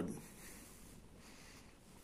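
The end of a spoken word, then near silence: room tone with faint handling noise from the model engine's base being turned in the hands.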